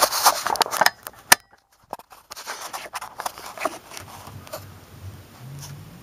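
Clicks and metal clatter from handling the air handler's sheet-metal access door during the first second or so. Near the end, a Goodman variable-speed blower motor starts with a low hum and a tone that rises steadily in pitch as it ramps up.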